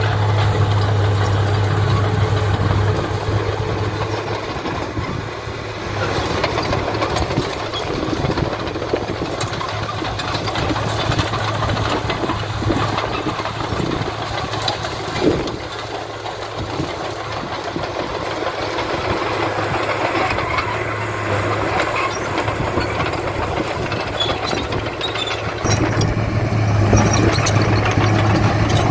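Diesel engines of heavy earthmoving machinery running, with scattered clanks. A steady low engine drone is strong at first, drops back in the middle and returns near the end.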